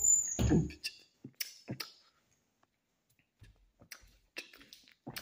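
A few scattered light clicks and taps, likely from handling, with a short voice-like sound in the first second and quiet gaps between the clicks.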